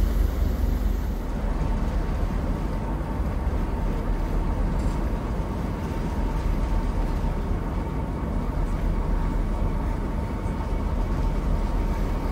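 Steady low rumble with a faint steady hum above it.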